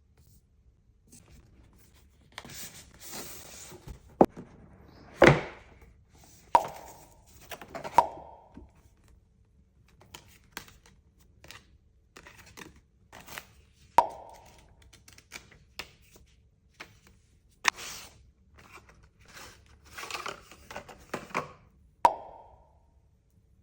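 Keyboard packaging being handled and opened: scattered clicks and knocks, a few louder thuds that ring briefly, and short bursts of rustling and tearing of cardboard or wrapping.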